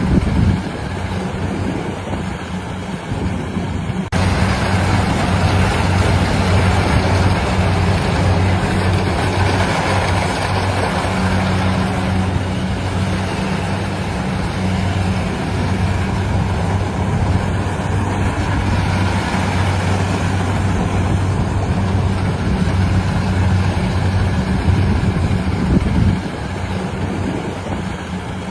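Rice harvesting machine running steadily: a low engine hum under broad mechanical clatter and rush, which grows louder about four seconds in and eases near the end.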